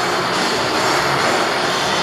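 Dirt bike engines running loud and steady inside a steel-mesh globe-of-death cage, with music playing underneath.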